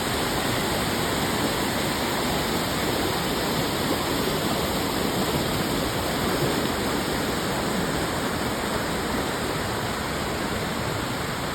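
Waterfall, the steady rush of falling water.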